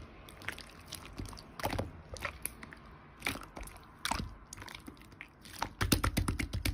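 Slime being squished and pressed by hand, making irregular sticky clicks and crackles that grow thicker and louder near the end.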